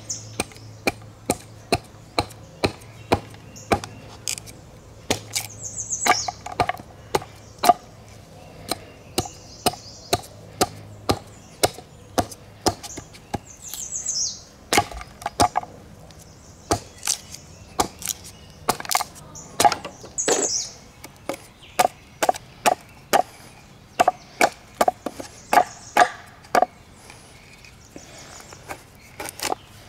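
A blade chopping into a piece of wood, roughing out a wooden spoon blank: a steady series of sharp chopping blows, about one to two a second with short pauses. Birds chirp now and then in the background.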